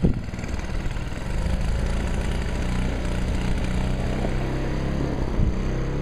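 An engine running steadily at a constant speed, a low even hum.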